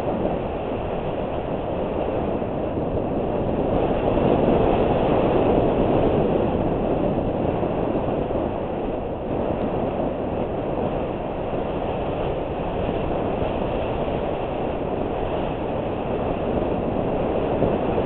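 Mountain bike rolling fast downhill on a dirt and gravel fire road: steady rumble and rattle of the tyres and bike, with wind over the helmet-mounted camera. It swells a little about four to six seconds in.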